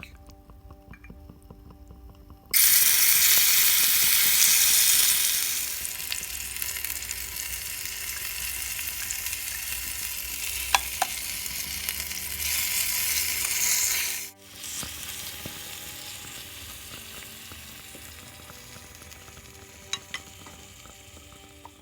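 Food dropped into hot oil in a miniature pan, hissing loudly at once about two seconds in, then settling into a steady sizzle that slowly fades, with a few light clicks of stirring. It breaks off briefly near the two-thirds mark and resumes softer.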